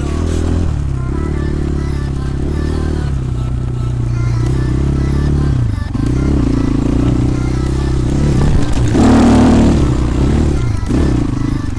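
250 cc enduro motorcycle engine running under changing throttle, its pitch rising and falling as it is revved. About nine seconds in comes a louder, rougher burst of noise.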